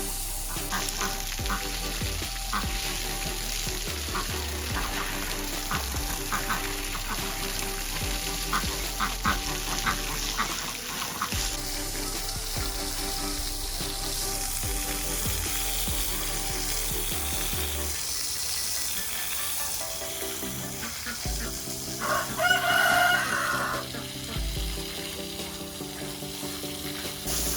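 Background music over a steady crackling hiss. A rooster crows once, briefly, about three-quarters of the way through.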